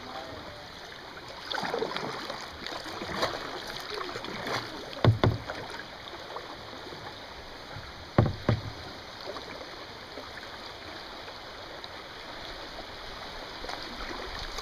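Kayak paddle strokes dipping and splashing over the steady rush of river current, with two louder thumps about five and eight seconds in.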